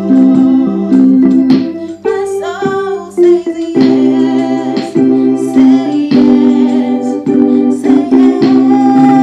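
A woman singing while playing sustained chords on a portable electronic keyboard, the chords changing every half second or so. Her voice, with a wavering pitch, stands out about two to three seconds in.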